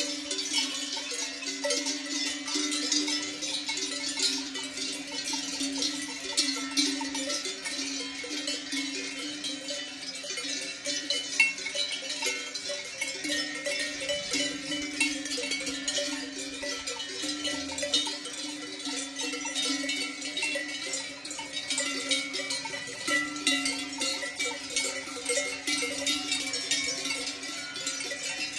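Many cowbells clanking and ringing continuously as a herd of grazing cattle moves, the bells at several different pitches overlapping in a constant jangle.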